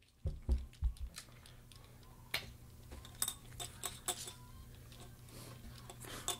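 Plastic poker chips clicking and clinking as they are stacked and riffled on a wooden table, with a few dull thumps in the first second, over a faint steady low hum.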